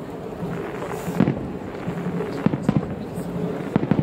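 Aerial fireworks shells bursting overhead: four sharp booms at uneven intervals, two of them in quick succession.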